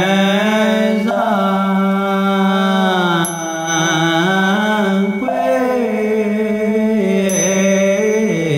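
Chinese Buddhist fanbei chant sung slowly in long, held notes that glide between pitches. A small bell gives a high ringing tone twice, about four seconds apart.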